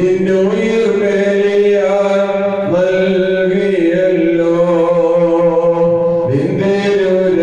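A bishop's solo male voice chanting the Syriac Orthodox liturgy, holding long notes and gliding to a new pitch every few seconds.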